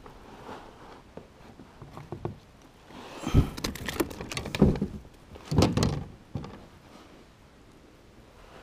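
A few thumps about a second apart against a fishing kayak's hull as a hooked bass is brought alongside and lifted aboard.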